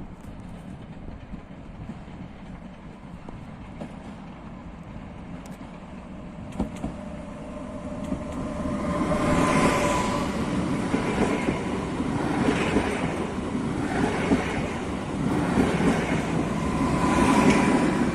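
Train running through the station, building from a low rumble to a loud clatter from about eight seconds in, as the wheels knock over rail joints in a regular beat about every one and a half seconds. A thin steady whine runs through it.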